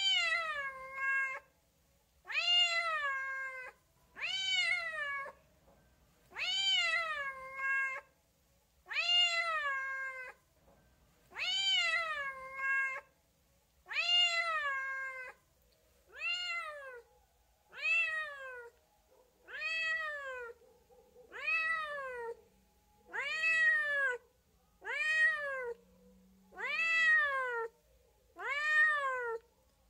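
Domestic cat meowing over and over, about fifteen meows roughly one every two seconds, each rising then falling in pitch. The first half-dozen are longer, with a drawn-out end; the later ones are shorter.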